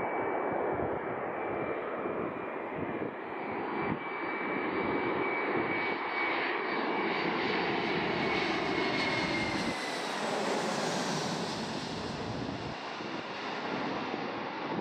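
Airbus A321 twin-engine jet airliner on final approach with gear down, passing low overhead: a steady jet roar with a high engine whine that grows louder to a peak as it passes over, then the whine drops in pitch as it moves away.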